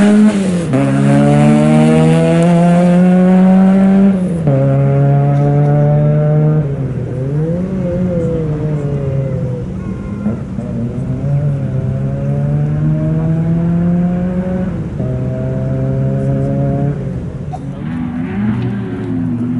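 Mk2 Vauxhall Astra rally car's four-cylinder engine accelerating hard away, its pitch climbing through the gears with upshifts about a second in and about four seconds in. After that it lifts off and the revs dip and rise again for a bend, then it pulls away and fades into the distance.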